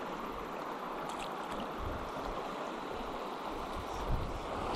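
River water flowing, a steady rushing noise.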